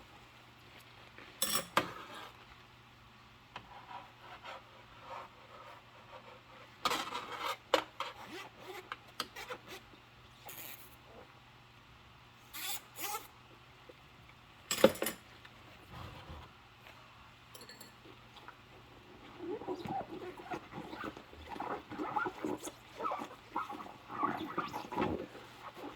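Rubber-gloved hands washing dishes: scattered clinks and knocks of dishes, the sharpest about halfway through, then a quick run of squeaks of wet rubber gloves rubbing on the dishes in the last several seconds.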